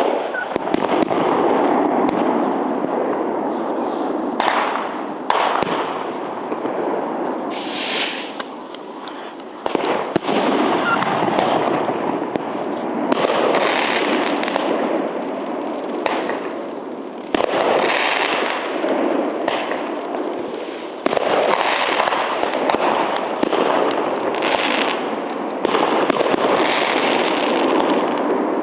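New Year's Eve fireworks going off without a break: repeated sharp bangs, one after another, over a dense, continuous noisy wash.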